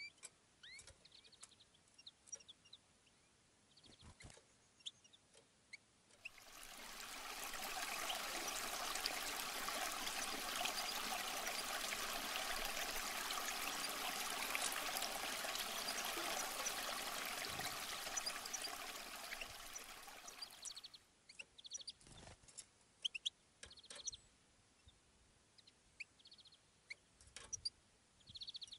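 Rushing water over rocks fades in a few seconds in, runs steadily for about fourteen seconds and fades out. It is framed by sparse, short bird-like chirps and clicks before and after.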